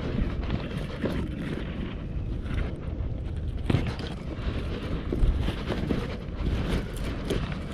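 Wind rumbling on the microphone, with scattered light knocks and clicks through it.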